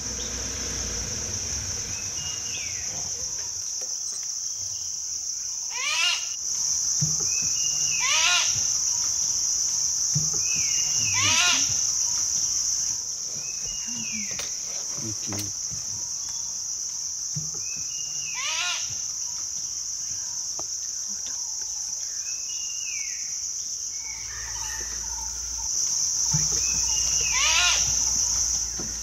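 A steady, high-pitched chorus of insects shrilling without a break, with a bird giving a short burst of quick, arching notes about five times and fainter short whistled notes between. A low rumble rises near the end.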